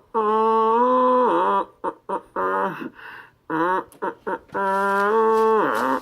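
A man's voice singing a wordless melody unaccompanied, short syllables broken by two long held notes, the second about four and a half seconds in.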